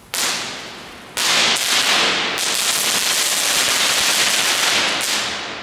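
Small category 1 ground firework burning on the pavement: a short burst of crackle at the start, then about a second in a loud, continuous crackling spray of sparks that lasts about four seconds and dies away near the end.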